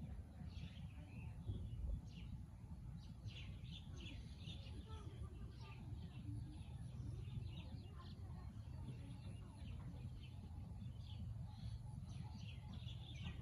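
Small birds chirping in quick, overlapping high chirps throughout, over a steady low rumble.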